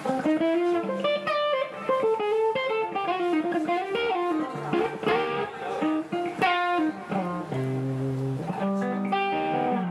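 Electric blues instrumental played live by a guitar, bass and drums trio: an electric guitar lead of quick runs with bent notes, settling on a long held low note near the end.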